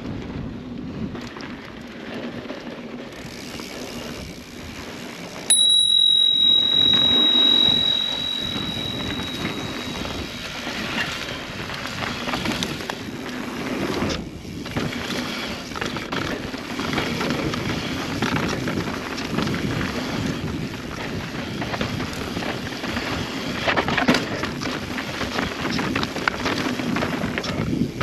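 Mountain bike riding a dirt trail, with steady tyre, drivetrain and wind noise throughout. About five seconds in, a bicycle bell rings once: one clear high tone that fades over a few seconds.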